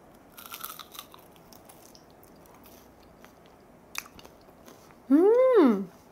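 A person bites crunchily into a pan-fried, sauce-coated rice cake (tteok) skewer, then chews quietly. About five seconds in comes a loud, drawn-out vocal exclamation that rises and then falls in pitch.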